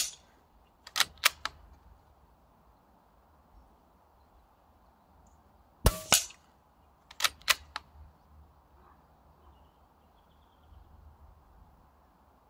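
Weihrauch HW110 .22 pre-charged pneumatic air rifle firing a single shot about six seconds in. Two quick clicks come about a second in and again about a second after the shot: the sidelever being cycled to load the next pellet from the magazine.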